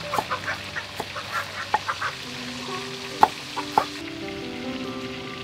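Cleaver chopping on a thick wooden chopping board: a run of sharp, irregular chops through the first few seconds, the loudest about three seconds in.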